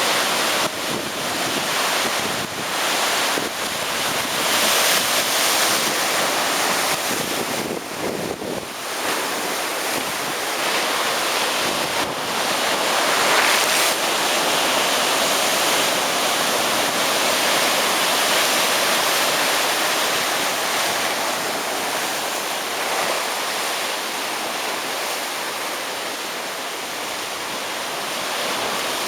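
Heavy ocean surf breaking and washing up the beach: a continuous wash of waves that swells and eases, with wind buffeting the microphone at times.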